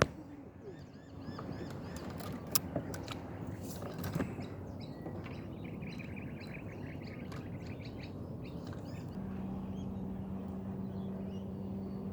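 Small birds chirping in quick repeated calls over a low background, with a couple of sharp knocks about two and a half and four seconds in. From about nine seconds in, a steady low engine hum joins, from a boat on the water.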